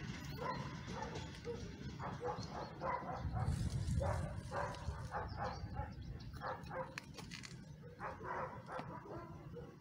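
A dog barking repeatedly in runs of short barks, over a steady low rumble that swells about three and a half seconds in.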